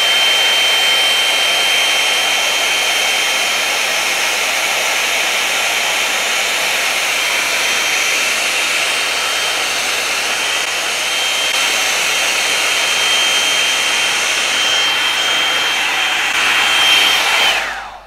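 Hot-air brush hair dryer running on its high setting: a steady rush of air with a thin, high motor whine over it. It is switched off near the end, and the whine falls away.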